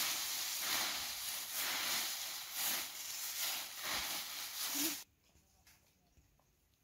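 A steady hiss with faint crackles that cuts off abruptly about five seconds in.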